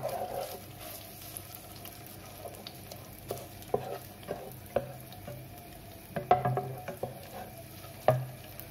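Tomato paste sizzling in hot oil in a nonstick frying pan, stirred with a wooden spatula that scrapes and taps the pan now and then. The paste is being fried off to cook out its raw taste.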